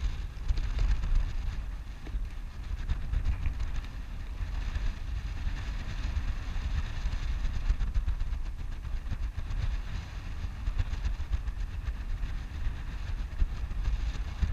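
Wind buffeting the camera's microphone, an uneven low rumble, with a fine crackling hiss of small waves lapping around the wading angler.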